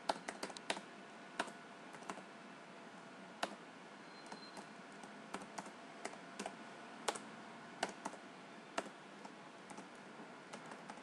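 Computer keyboard being typed on: irregularly spaced single key clicks and short quick runs of keystrokes, over a faint steady hiss.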